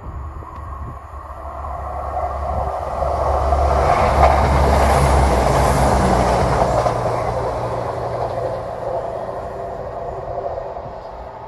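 CrossCountry Class 170 Turbostar diesel multiple unit passing through the station without stopping. Its engine hum and the noise of wheels on rail build up, are loudest about four to seven seconds in as it goes by, then fade away.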